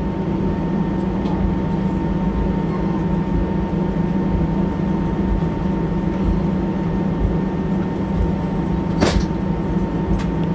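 Steady cabin drone of an Airbus airliner taxiing, its engines and air system giving a low hum with a thin steady whine above it. A single sharp click about nine seconds in.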